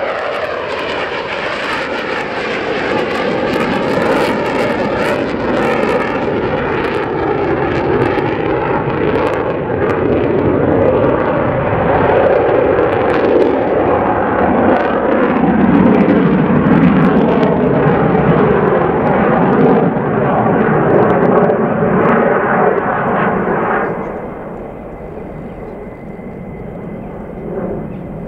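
Twin jet engines of USAF F-15 Eagle fighters, loud and continuous as a jet climbs away from a go-around and passes overhead, the pitch falling as it goes by at the start. The sound deepens and grows loudest around the middle, then drops off sharply near the end to fainter, distant jet noise.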